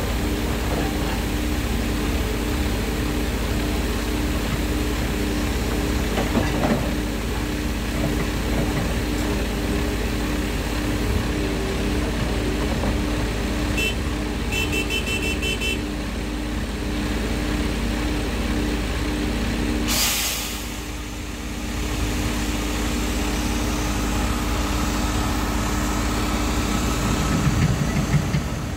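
Diesel engine of heavy construction machinery running steadily. Short high beeps come briefly around the middle, and a short burst of hiss about twenty seconds in.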